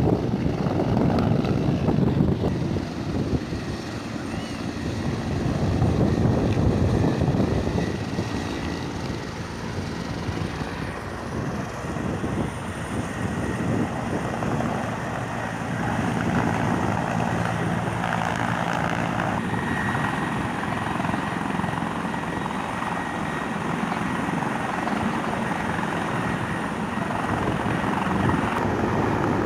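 Helicopter rotor and engine running, a continuous low beat that swells twice in the first several seconds and then holds steady.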